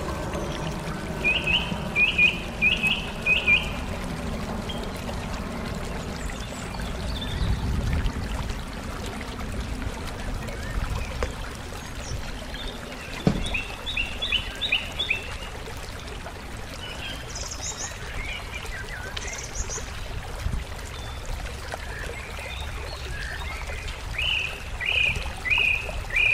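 A songbird singing short series of four or five quick downslurred chirps, repeated a few times, with a few higher chirps between, over a steady rushing background noise.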